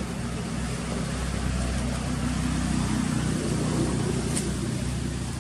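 Steady low hum of a motor vehicle's engine, growing a little louder through the middle.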